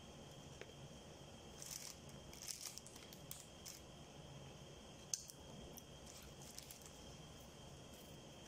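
Faint eating sounds close to the microphone: a person chewing chicken, with wet mouth smacks and clicks in a few clusters and one sharp click about five seconds in, over a steady low hum.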